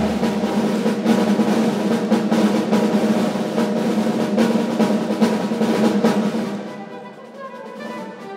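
Drum kit played solo in fast, dense strokes with snare and cymbals. About six and a half seconds in it drops much quieter, leaving ringing tones.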